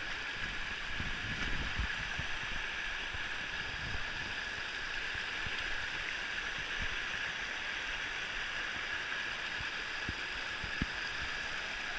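Shallow river water rushing over rocky ledges and riffles: a steady, even rush of running water.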